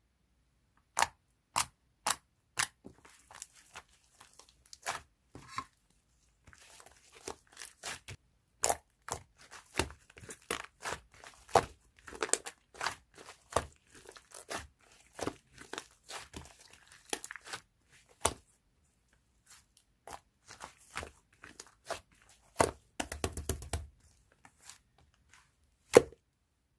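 Irregular sharp clicks and taps with crinkling, rustling noise between them, like something being handled close to the microphone; a short low rumble with a burst of clicks near the end.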